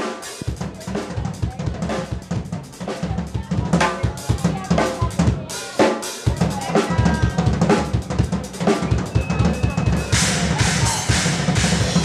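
Drum solo on an acrylic-shell drum kit: rapid snare and tom strikes over bass drum, with a brief break a little before the middle. Cymbals crash repeatedly over the last two seconds.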